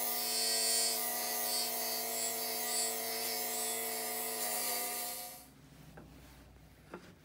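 Master Mechanic 6-inch bench grinder's wire wheel scouring rust off a steel shovel blade: a steady high hiss over the motor's hum. It stops about five and a half seconds in, followed by a couple of faint knocks.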